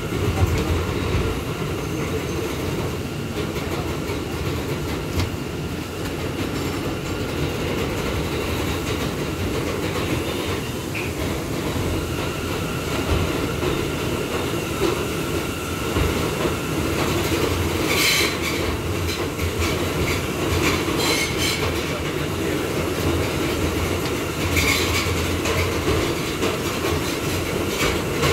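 R179 subway car running through a tunnel at speed: a steady rumble of wheels on rail with rattling. About two-thirds of the way in, and again a few seconds later, the wheels give short bursts of high-pitched squeal.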